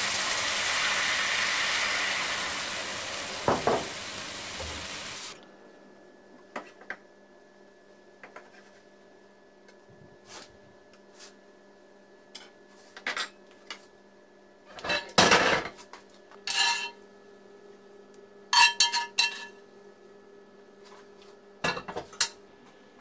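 Cast-iron skillet of meat juices sizzling steadily as red wine is poured in, cutting off about five seconds in. Then knife and utensil clicks on a wooden board and ceramic plates as meat is sliced and plated, with a few louder ringing clinks around the middle and one near the end.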